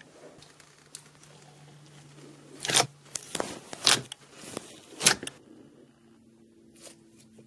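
Glossy slime being stretched, poked and squeezed by hand: sticky crackles and wet pops, with three loud, sharp snaps about three, four and five seconds in.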